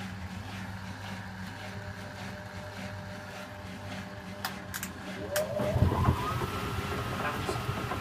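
Bendix 7147B front-loading washing machine during its wash cycle. A steady low hum, then a couple of sharp clicks about four and a half seconds in. After that the drum motor starts up with a rising whine that levels off into a steady high tone, and the machine grows louder.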